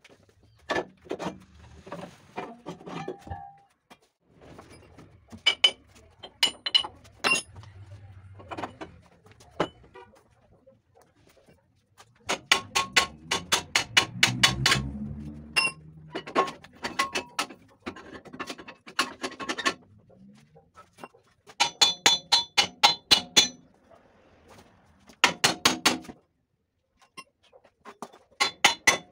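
Hammer striking steel in quick runs of blows with a metallic ring, with scraping and quieter knocks between, while knocking loose the balance beam of a 1961 Scania L75 truck's rear tandem suspension.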